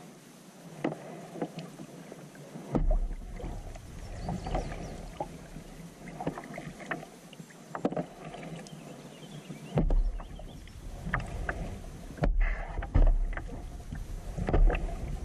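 Kayak paddling on calm water: irregular paddle strokes splashing and dripping, with a few louder low thumps.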